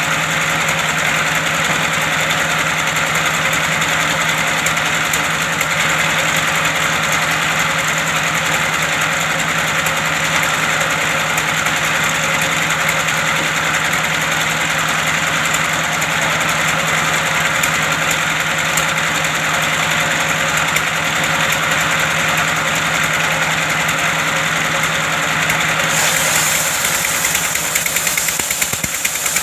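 Engine of a wood-cutting machine running steadily, with a constant low hum under dense machine noise. Near the end the higher part of the sound changes and the loudness turns uneven.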